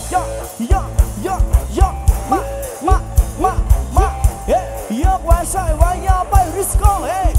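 Loud live Thai Isan band music from a rot hae sound-truck stage: a heavy kick drum and bass keeping a steady beat under a melodic lead whose notes slide up and down in pitch.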